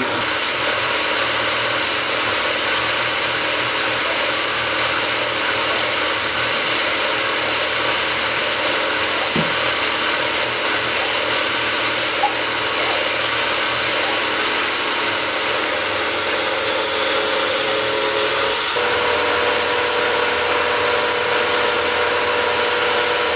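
Benchtop CNC milling machine's spindle running while a small drill bores into a tiny part, under a loud, steady hiss of air from the brass coolant nozzle. The machine's hum changes pitch slightly about 19 seconds in.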